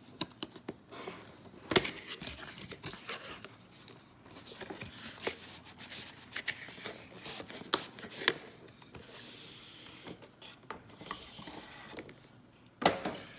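A cardboard model-train box being opened by hand: rustling and rubbing of cardboard and packing, with scattered sharp clicks and knocks, the loudest about two seconds in and twice around eight seconds in.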